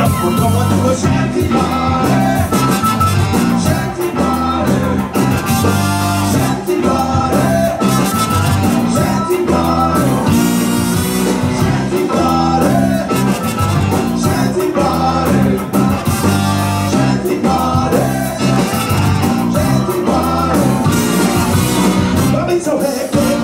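A ska band playing live, with trumpet and saxophone on the melody over electric guitar, bass, keyboard and drums.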